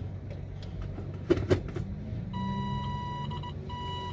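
Car engine and road hum heard from inside the cabin while driving, with a couple of brief knocks about a second and a half in. From about two seconds in, an electronic beeping tone starts, sounding in a repeating pattern of long beeps and quick short ones.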